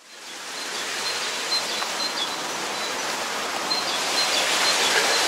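Dawn outdoor ambience: birds chirping with repeated short, high notes over a steady hiss, fading in at the start.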